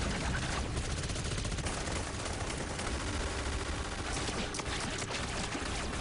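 A dense, sustained volley of rapid gunfire from several guns firing at once, with no break.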